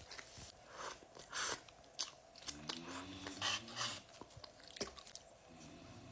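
A man snoring: a low buzzing snore about halfway through and another starting near the end, amid a run of sharp crunching clicks.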